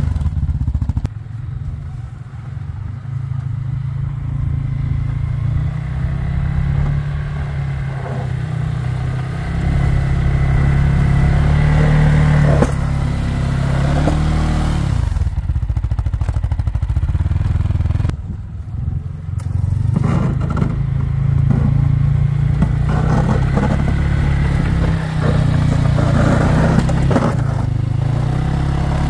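Single-cylinder engine of a CFMoto CForce 600 ATV running at changing revs as it pushes snow with a front-mounted plow blade, with the blade scraping and clattering through the snow.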